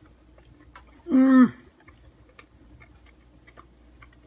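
A person chewing a bite of pizza, with faint clicking mouth sounds, and about a second in a short, loud 'mmm' of enjoyment that drops in pitch as it ends.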